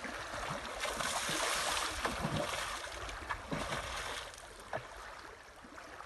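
Lake water churning and lapping around a swimmer who has just gone in, with a few small splashes and drips. It slowly dies down as he surfaces.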